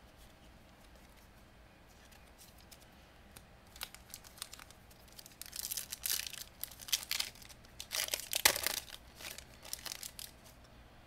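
Foil Pokémon booster pack wrapper being torn open and crinkled by hand. It comes in quick papery rips and crackles after a few quiet seconds, loudest about eight and a half seconds in.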